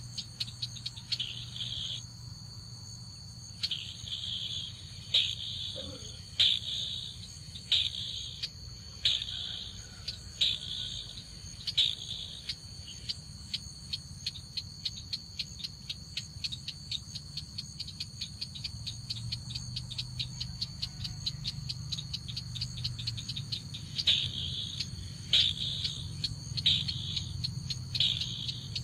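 A rapid, regular clicking call with short chirping bursts about every second and a half, over a steady high insect-like buzz; the chirping drops out for about a second and a half near the start.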